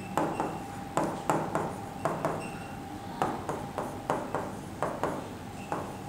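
Marker pen tapping and scraping on a whiteboard while writing fractions, a run of short, irregular taps.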